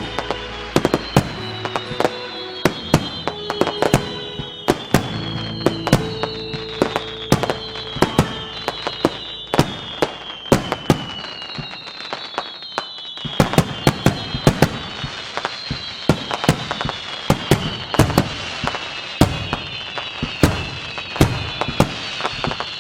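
Fireworks going off: a dense run of sharp bangs and cracks, with high whistles that slide down in pitch one after another as whistling shells rise.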